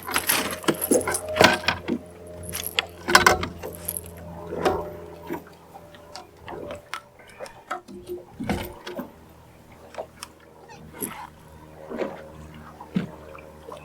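Irregular clatter and knocks of fishing tackle and a landed catfish being handled on a boat deck, over a steady low hum.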